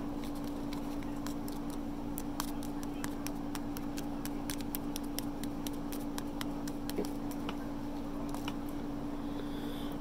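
Small paper seasoning packets being crinkled and shaken, a scatter of light ticks and crackles, over a steady low hum.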